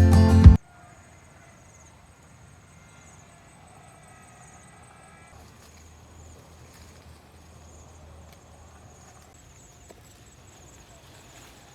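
Music cuts off about half a second in, leaving faint forest ambience: insects trilling in short, high-pitched pulses that repeat over and over, with a few faint whistled calls in the first few seconds.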